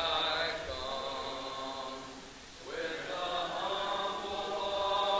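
Congregation singing a hymn a cappella, unaccompanied voices on long held notes, with a brief pause for breath about two seconds in: the invitation song sung standing after the sermon.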